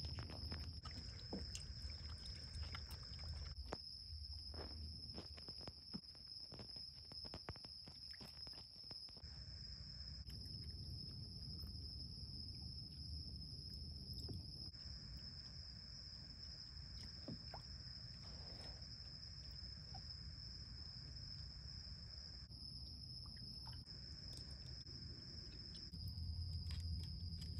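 Raccoons dabbling with their paws in the shallow water of a plastic kiddie pool, with small splashes, sloshes and taps, over a steady high-pitched trill of night insects.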